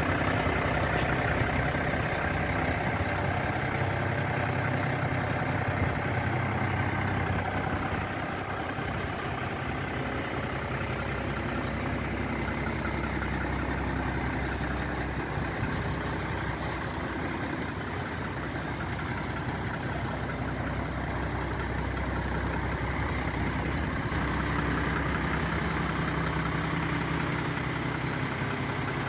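MAN LE220C 4x4 fire truck's six-cylinder diesel engine idling steadily, a little quieter after about eight seconds.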